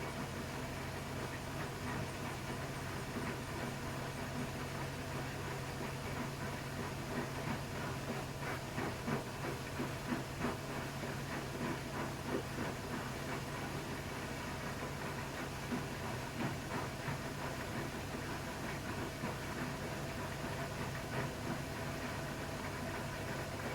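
Bosch WAT286V0 washing machine with EcoSilence Drive motor running, a steady hum with irregular soft knocks and swishes from the drum, most of them in the middle stretch.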